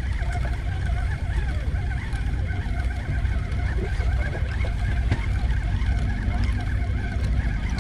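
Steady low rumble of a sportfishing boat's engine running, with a faint, restless higher chatter above it.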